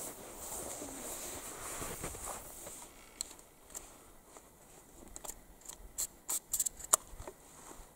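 Rustling, then a run of sharp clicks and clacks from handling a Remington 870 Express Super Magnum 12-gauge pump shotgun, the clicks coming thicker and louder near the end.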